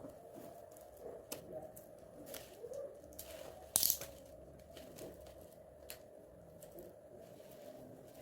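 Packaging being handled and torn open: scattered rustling and crinkling, with one short, louder rip about four seconds in.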